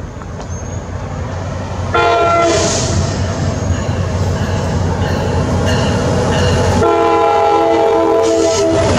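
NJ Transit PL42AC diesel locomotive 4010, leading a train of double-deck coaches, sounds its horn in two blasts as it approaches: a short one about two seconds in and a longer one from about seven seconds in. Under the horn, the rumble of the engine and train grows louder as it nears.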